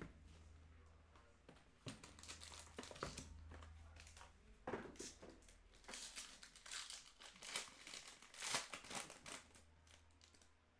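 Foil trading-card pack and packaging being handled, crinkling and rustling in irregular short crackles that grow busier about halfway through, over a faint steady low hum.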